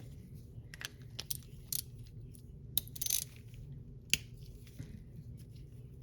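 Light clicks, taps and a short scrape of small metal carburetor parts and a hand tool being handled, with a sharp click just after four seconds, as the float bowl is worked loose from a Briggs and Stratton lawnmower carburetor.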